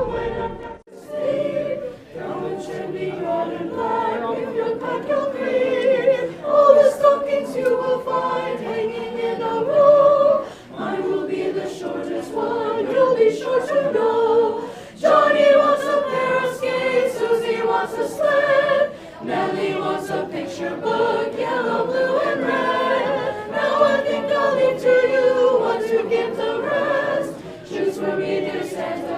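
A group of voices singing a Christmas carol together, held notes moving steadily through the melody.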